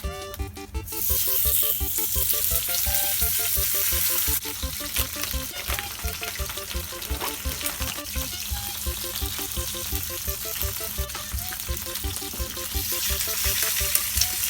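Food frying in a hot pan: a loud sizzle that starts suddenly about a second in, eases somewhat after about four seconds, and runs on.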